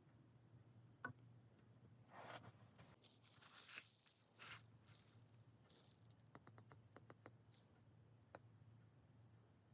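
Faint packaging being handled during an unboxing: a sharp click, then a couple of seconds of rustling and tearing, followed by a run of light clicks.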